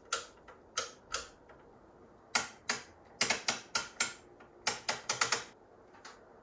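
Front-panel switches of a Tektronix 465B oscilloscope clicking as the controls are turned and flipped: a dozen or so sharp clicks, single at first, then in quick runs about three and five seconds in.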